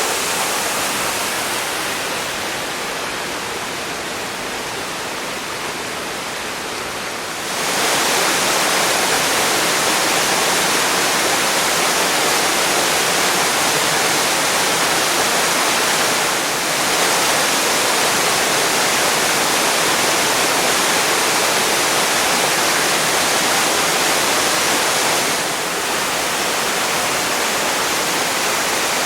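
Waterfall's water falling and rushing in a steady, full hiss. It is softer and duller for the first several seconds, then jumps suddenly louder about seven and a half seconds in, with two brief small dips later.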